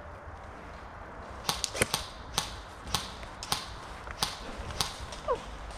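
Airsoft guns firing single shots: a quick cluster of sharp snaps about a second and a half in, then single snaps roughly every half second.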